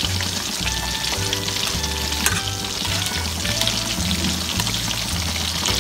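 Pork ribs deep-frying in hot oil in a wok: a steady sizzle with small pops.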